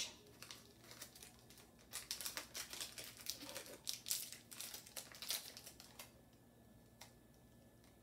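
Snack-bar wrapper crinkling as it is peeled back by hand, a run of crackles from about two seconds in to about six seconds in.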